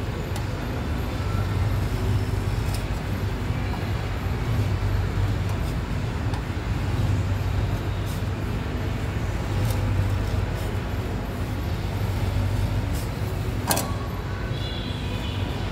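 Metal spatula scraping frozen ice cream into rolls on a steel cold plate, with a few sharp clicks, the clearest near the end, over a steady low hum.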